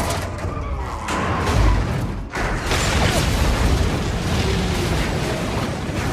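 Film sound effects of a fuel tanker exploding and its burning wreck tumbling: heavy booms and rumbling blasts, loudest about a second and a half in, with film score underneath.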